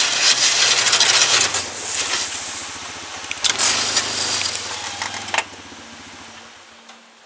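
A 2007 Yamaha Rhino 660 UTV's single-cylinder engine running under load as it pushes snow with a 48-inch plow blade, with a loud hiss of snow scraping and spilling along the blade. The sound drops off sharply about five and a half seconds in as the machine comes to a stop, and the engine hum fades away near the end.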